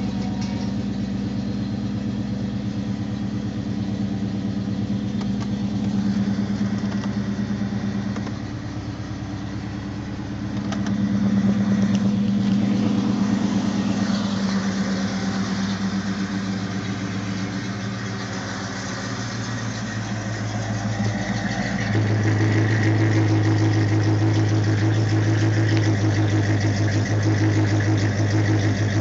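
1989 Ford Mustang LX 5.0's V8 idling steadily while still cold. About three-quarters of the way through it turns deeper and louder, heard at the dual tailpipes.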